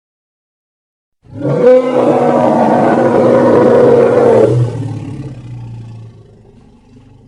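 Tyrannosaurus rex roar sound effect: one long, loud roar that starts suddenly about a second in, holds for about three seconds, then trails off slowly.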